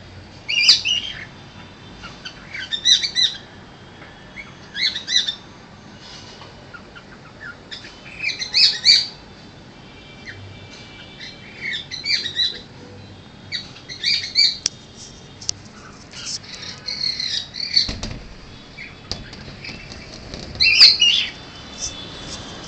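Cockatiel calling in short bursts of high chirps, a burst every two to three seconds.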